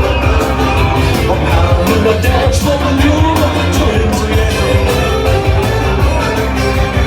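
Live rock band playing loudly, with a singer's voice over heavy bass and a steady drumbeat.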